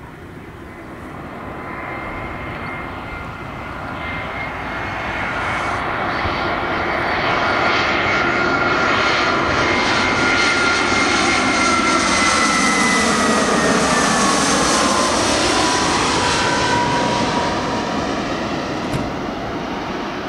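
Airbus A320's twin CFM56 turbofan engines on landing approach, passing low overhead. The jet roar builds over the first several seconds, holds at its loudest, then eases off. A high whine drops in pitch as the aircraft goes by.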